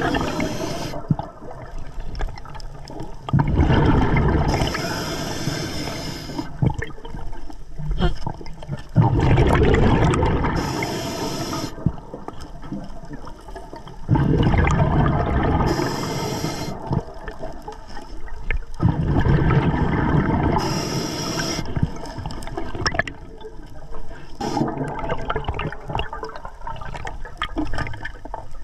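Scuba diver breathing underwater through an Atomic regulator: a short hissing inhale about every five seconds, five times, alternating with surges of bubbling exhaled air.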